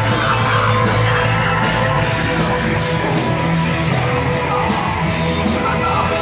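Loud rock music with sustained low guitar-like chords and a steady beat of cymbal hits, about two to three a second.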